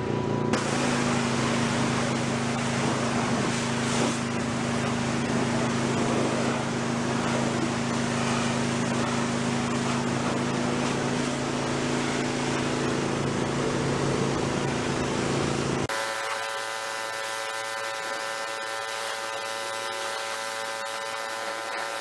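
Pressure washer running, its motor humming steadily under the hiss of the water jet blasting the aluminium boat hull; the spray starts just after the beginning. About sixteen seconds in, the sound changes abruptly to a thinner, higher buzzing hum.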